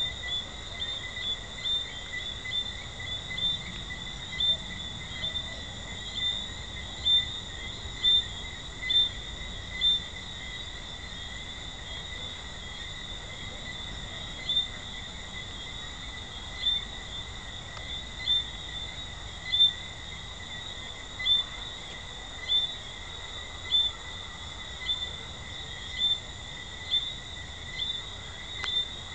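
Jamaican treefrogs calling at night: short, high chirps about once a second, with a few seconds' pause partway through, over a steady high-pitched chorus.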